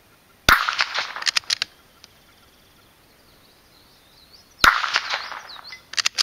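Two shots from a Marlin Model 80 .22 LR bolt-action rifle, about four seconds apart, each a sharp crack with a short tail, followed within a second by a quick run of several sharp ticks.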